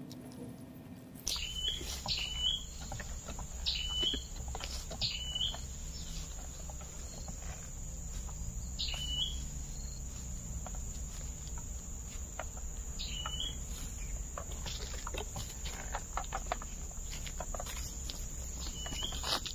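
A bird calling in short notes that drop in pitch, about eight times at irregular intervals, over a steady high whine and a low rumble. Light rustles and steps in dry undergrowth come in between.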